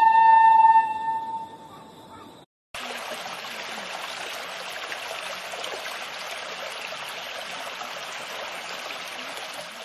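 The last held note of a shinobue and ocarina duet fades out over about two seconds. After a brief silent gap, water runs steadily over a small stone weir.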